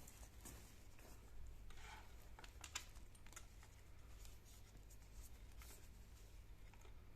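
Faint handling of watch packaging: a brief rustle and a scatter of light clicks and taps, most of them bunched together a couple of seconds in.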